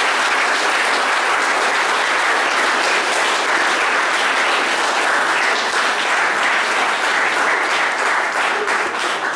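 Audience applauding steadily, thinning into separate claps near the end.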